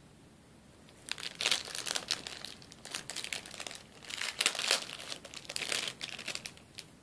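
Clear plastic bag of wax melts crinkling as it is handled, a run of quick irregular crackles starting about a second in and stopping near the end.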